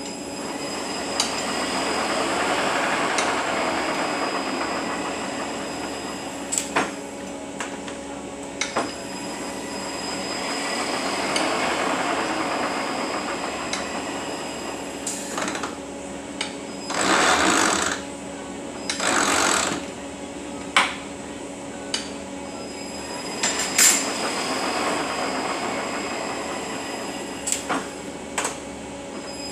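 Eaton Fuller RTLO-20918B 18-speed truck transmission running on a test dyno after repair: a steady gear whine that slowly swells and fades. Scattered sharp clicks and two short rushing noises come about two-thirds of the way through.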